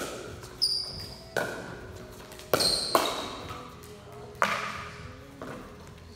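Pickleball rally: sharp pocks of paddles striking a hollow plastic ball, with a bounce or two off the floor, about half a dozen hits spaced irregularly, each ringing on in the echo of a big hall. A couple of short high squeaks follow two of the hits.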